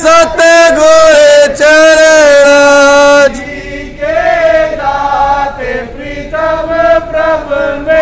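Sikh devotional chanting (simran) with long held notes. It is loud for about the first three seconds, then softer, with shorter, shifting notes.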